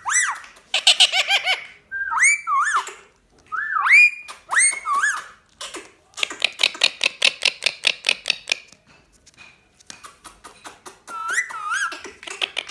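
Indian ringneck parrot (rose-ringed parakeet) whistling in short gliding notes that swoop up and down, then a fast run of clicking chatter, about seven clicks a second, in the middle, and one more gliding whistle near the end.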